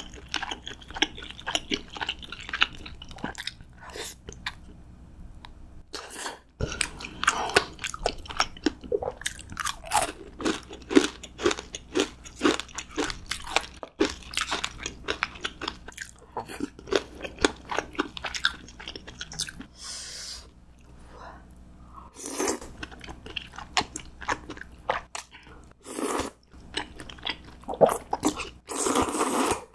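Close-miked eating of crunchy food: rapid crackly bites and chewing crunches, with a few short, louder noisy bursts in the second half.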